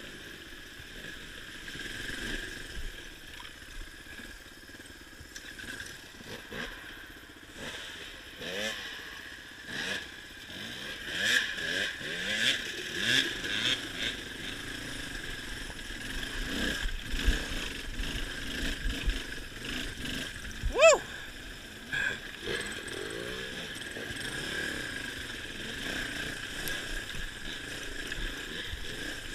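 Suzuki DR350's single-cylinder four-stroke engine being ridden off-road, the revs rising and falling with the throttle, with a short loud rev about two-thirds of the way through.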